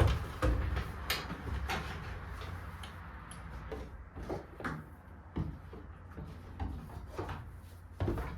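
Irregular knocks and clunks over a steady low rumble, loudest right at the start and again near the end.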